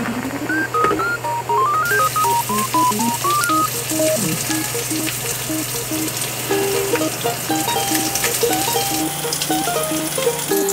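A pot of spicy soft-tofu stew (sundubu-jjigae) boiling, with a sizzling hiss and many small crackling pops that start about two seconds in. Background music with a light melody and a steady beat plays under it.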